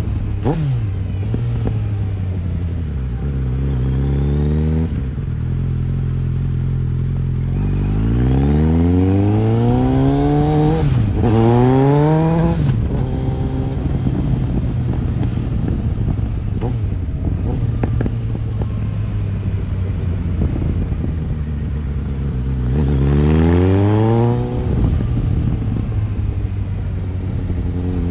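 2009 Suzuki GSX650F's inline-four engine under way, running steadily and then revving up three times, the pitch climbing and dropping back, with a quick gear change in the middle rise.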